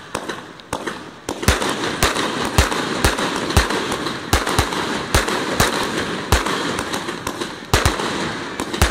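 Fireworks going off: a quick run of sharp bangs, about two a second, over a dense crackling hiss that sets in about a second and a half in.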